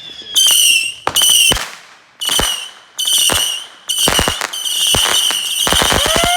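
Consumer fireworks going off. First come about five separate high whistling bursts, roughly a second apart. From about four seconds in, the whistling becomes continuous under dense rapid crackling.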